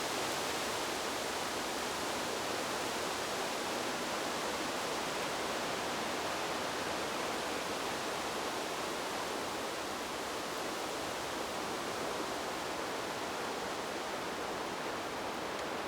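Wind sound effect: a steady, even rush of hissing noise without gusts or tones, easing slightly after about ten seconds.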